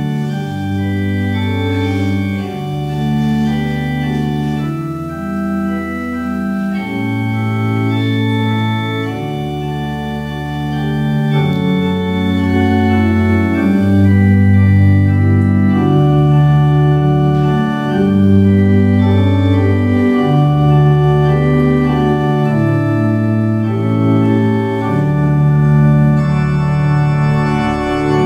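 Organ postlude: slow, held chords over a bass line that moves to a new note every second or two.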